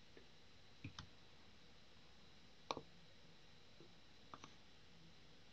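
A few faint computer mouse clicks over near-silent room tone: a quick pair about a second in, a single click near the middle, and another quick pair later on.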